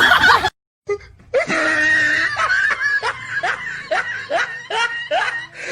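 A person laughing, a long run of short repeated 'ha' bursts at about three a second, starting about a second and a half in after a brief silence.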